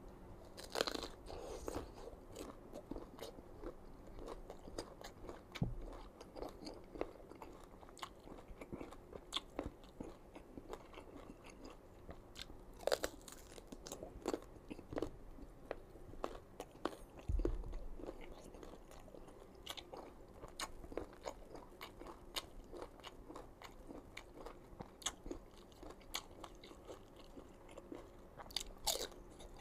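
Close-up crunching and chewing of crisp raw green mango, with a sharper, louder bite every so often.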